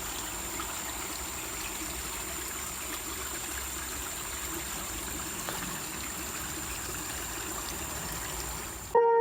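Small forest stream trickling steadily, with a thin steady high tone above it. Music cuts in abruptly near the end.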